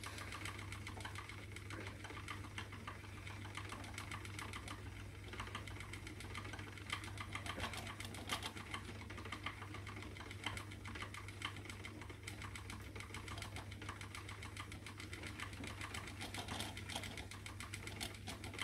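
Spinning wheel running while silk and merino are plied together: a steady, fast clicking rattle over a low hum.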